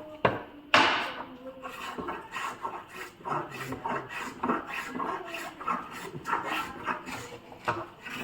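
A hand tool scraping on wood in irregular, repeated strokes, about two a second, with one sharp knock just under a second in.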